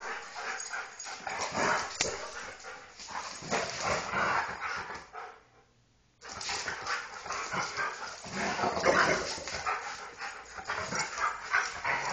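A husky and a golden retriever play-fighting rough, with barking and yipping in quick irregular bursts and a break of about a second near the middle.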